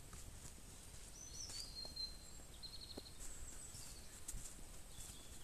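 Faint woodland birdsong: a few thin whistled notes falling in pitch, then a short trill, over quiet outdoor ambience. Faint footsteps on a dirt track sound underneath.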